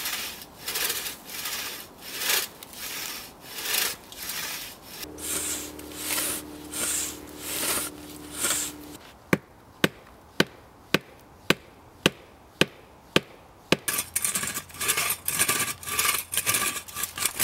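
Antique two-man crosscut saw cutting through a log, one rasping stroke each pull, about three-quarters of a second apart. In the middle comes a run of sharp, evenly spaced clicks about two a second, and near the end the strokes come quicker.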